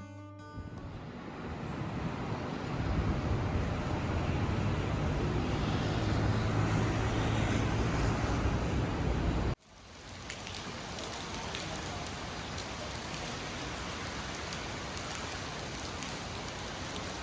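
Steady ambient noise: a low rumbling wash for the first half, then after a sudden cut an even hiss with faint scattered ticks, like rain or distant city noise.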